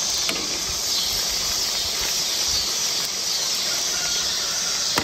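Hot oil sizzling steadily in a cast-iron pot as breaded fish fillets deep-fry.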